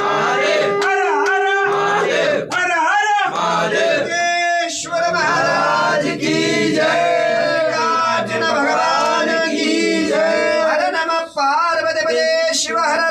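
Men's voices singing a devotional chant together during an aarti. A steady held tone sounds under the voices for the first two seconds, then stops.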